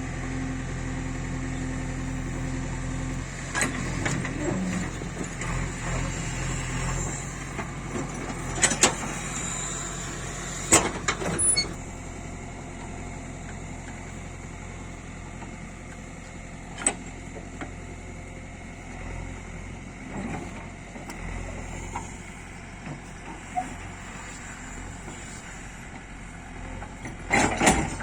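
Backhoe loader's diesel engine running under load, easing off about three seconds in, with a series of sharp knocks and clanks, loudest around nine to eleven seconds and again near the end.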